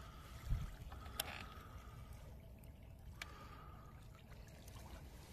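Faint water lapping and trickling at the shoreline, with a dull thump about half a second in and two sharp clicks, about a second and three seconds in.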